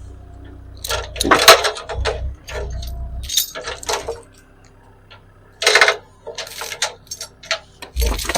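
A log being turned on a portable sawmill with a cant hook: a series of sharp metallic clanks and knocks, the loudest about a second and a half in and another near six seconds, over a low hum in the first few seconds.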